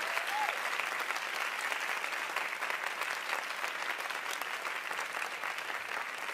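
Audience applauding steadily after a ballet solo, many hands clapping together.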